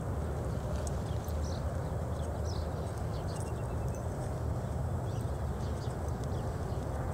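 Horse walking under a rider on soft dirt arena footing, its hoofbeats over a steady low rumble, with scattered faint high chirps.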